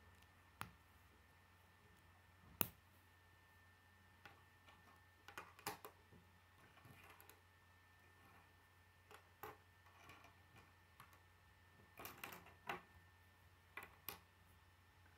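Plastic K'nex pieces clicking as black rods are snapped into red connectors and set down on a wooden tabletop: scattered sharp clicks and taps, some in quick little clusters, the loudest about two and a half seconds in. A faint steady hum lies underneath.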